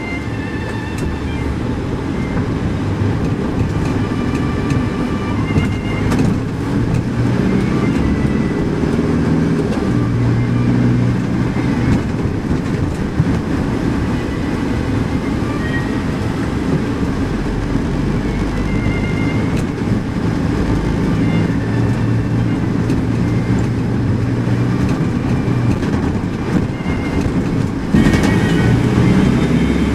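Car interior noise while driving: a steady rumble of engine and tyres on the road, heard from inside the cabin, a little louder near the end.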